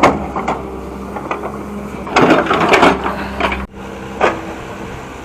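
Hitachi hydraulic excavator working: a steady engine hum under bursts of clunking and scraping, the loudest from about two to three seconds in. The low hum cuts off abruptly a little before the end.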